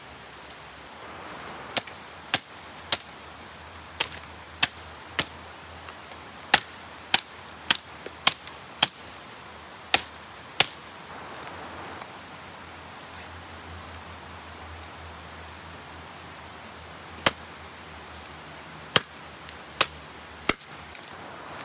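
Dead branches and sticks snapping with sharp cracks, about a dozen in the first ten seconds, then a few more near the end.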